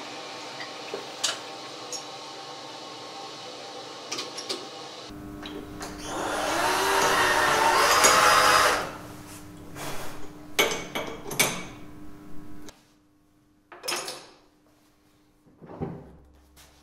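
Metalworking sounds: a metal lathe running steadily with a few sharp clicks, then a hand-held cordless drill boring into a bronze piece, rising for about three seconds and stopping abruptly, followed by a run of sharp clicks and knocks and a few short bumps.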